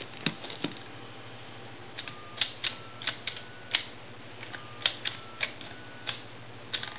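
Pushbuttons on a 10-key touch-tone Princess telephone keypad clicking as they are pressed and released, about six presses from about two seconds in. Each press sounds a short touch-tone beep. There are two light knocks just after the start.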